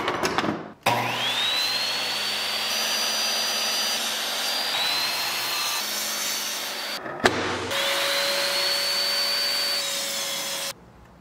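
Ryobi miter saw motor spinning up with a rising whine and cutting through a scrap 2x4, twice: a long run of about six seconds, a short stop with a click, then a second run of about three seconds.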